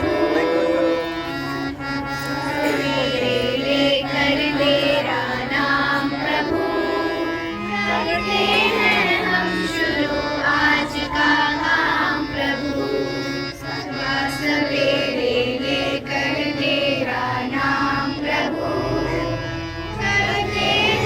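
A school music band playing a devotional song: a melody that bends in pitch over steady held low notes.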